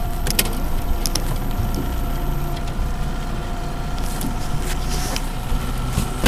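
Boat motor running steadily, with a few light clicks over it.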